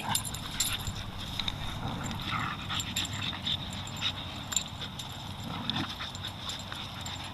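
A dog making a few brief, soft sounds over a low steady hum.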